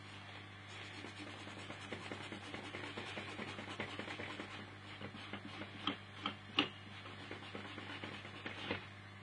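Scratching and light ticking from hands and small tools working on a motherboard, with a few sharp clicks about six to seven seconds in and again near the end, over a steady low hum.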